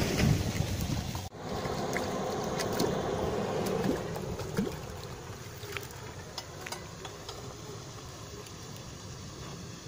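A car's engine running quietly as the car rolls up and stops, under a steady outdoor hiss. It is louder for the first second, drops suddenly, and a few light clicks follow.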